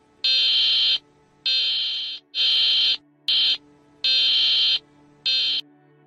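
Shrill electronic alarm beeping: six loud high-pitched beeps in an uneven pattern of long and short tones, with a faint low steady hum underneath.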